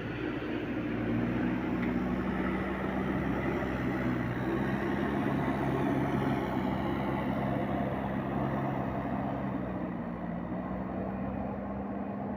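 Diesel engine of a JCB 3DX backhoe loader running at steady revs. It grows a little louder about a second in and eases slightly near the end.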